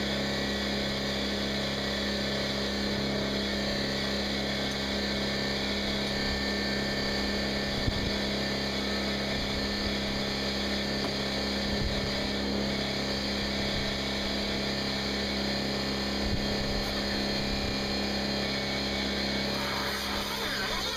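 A motor running steadily, with a low hum that pulses a little faster than once a second and a few light knocks.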